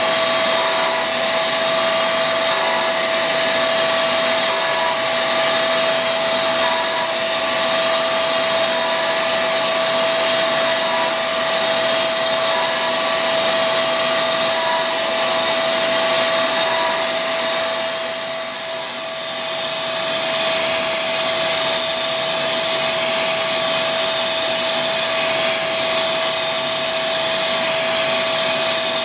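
Homemade surface grinder running: a steady motor whine over a hiss. The hiss dips and then recovers about two-thirds of the way through.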